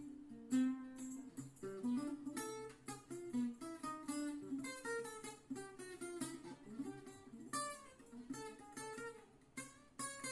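Acoustic guitar playing: a quick plucked melody of single notes over chords.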